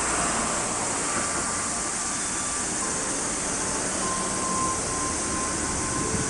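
Town disaster-warning outdoor loudspeaker system sounding its 5 pm signal: faint, broken tones that come and go over a steady rushing noise.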